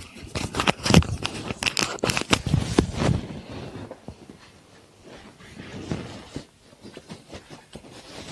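Microphone scratching: crackling, rustling scrapes of fabric rubbing, dense and loud for about the first three seconds, then sparse and fainter.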